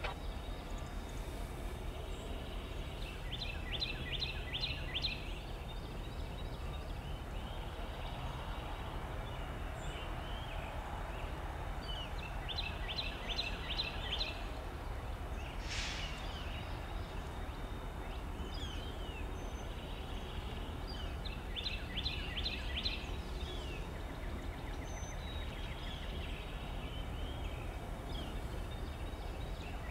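Diesel locomotive idling with a steady low rumble. Over it, a bird's call, a quick run of rapid high-pitched notes, repeats about every nine seconds, and a short hiss comes about sixteen seconds in.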